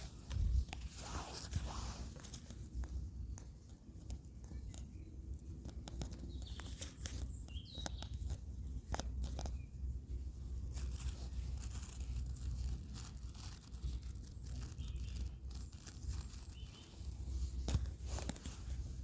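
Rolling paper rustling and tearing, with small irregular clicks and handling sounds, as a joint is rolled by hand, over a steady low rumble.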